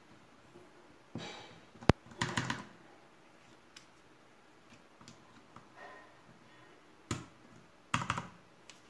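XDA-profile keycaps being pressed onto the switch stems of a mechanical keyboard: short runs of plastic clacks, the sharpest single click about two seconds in and another run near the end, with faint light taps between.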